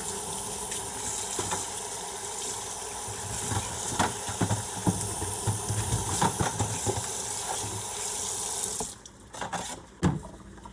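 Kitchen tap running into a stainless steel sink while gloved hands rub and rinse a pile of small hot peppers, with light knocks as the peppers bump against the sink. The water cuts off about nine seconds in, leaving a few knocks.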